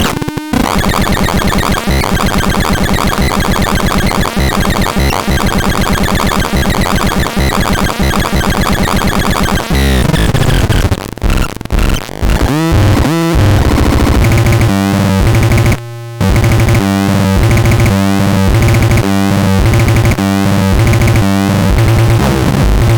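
Harsh electronic synthesized tones from the ANERDAN C203M sound unit: a fast buzzing pattern, then sweeping glides up and down about ten to thirteen seconds in, then a steady rhythmic pulsing tone pattern broken once by a short gap.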